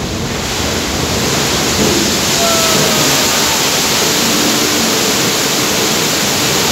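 Staged flash-flood effect in a theme-park ride canyon: a torrent of water pouring down a rock face with a loud, steady rush that swells within the first second.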